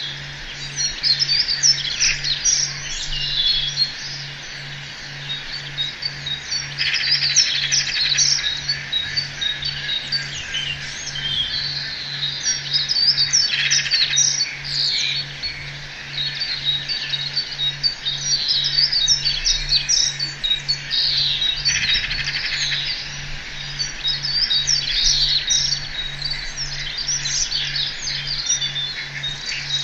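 Dense chorus of many songbirds chirping and trilling, overlapping without pause, over a low hum that pulses about one and a half times a second.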